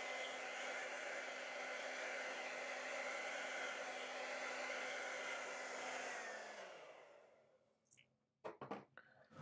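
Hand-held hair dryer blowing steadily to dry wet acrylic paint, then switched off about six seconds in, its whine sliding down in pitch as it winds down. A few short knocks follow near the end.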